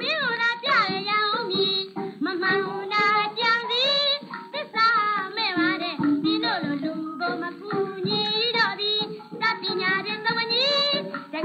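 A woman singing a traditional Burmese song in a high voice with wavering vibrato over instrumental accompaniment, played from a 1940 Columbia 78 rpm shellac record.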